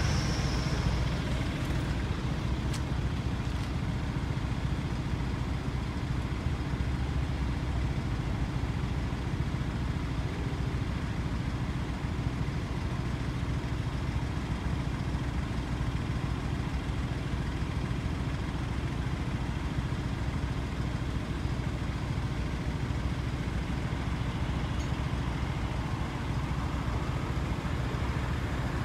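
A steady low engine rumble, holding unchanged throughout.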